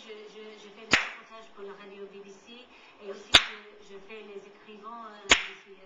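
Three sharp cracks or smacks, evenly about two seconds apart, over faint speech from a television.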